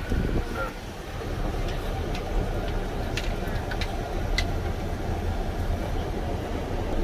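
Car interior noise while driving slowly: a steady low rumble of engine and tyres, with a few short faint high clicks in the middle.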